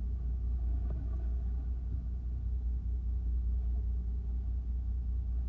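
Fishing boat's engine idling, a steady low rumble.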